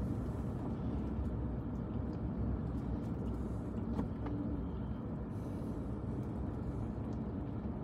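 Steady low rumble of a car's engine and tyres on the road, heard inside the moving car's cabin, with a faint click about four seconds in.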